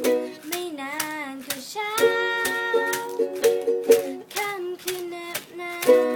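Music: ukulele strumming steady chords, with a wavering melody line over them in the first part and held melody notes near the middle.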